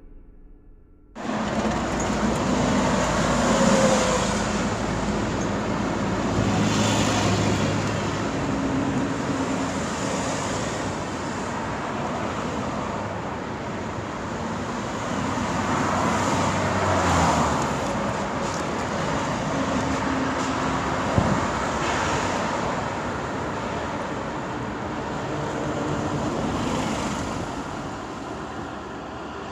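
Street traffic ambience: a steady wash of road noise with engine hums, and vehicles passing one after another, each swelling and fading. It starts suddenly about a second in.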